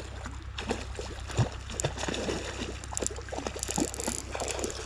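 Fly rod and reel being handled while playing a hooked trout: irregular small clicks and knocks over a steady low rumble.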